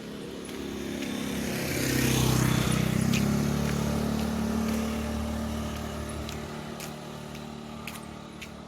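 A motor vehicle driving past on a highway, its engine note dropping in pitch as it goes by; it is loudest about two to three seconds in, then fades away.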